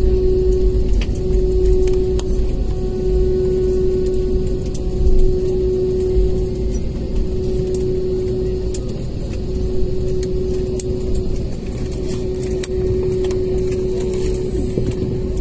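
Cabin noise of an Airbus A320-family jet on its landing roll just after touchdown, spoilers up: a loud, steady low rumble with a constant hum, gradually getting quieter as the aircraft slows.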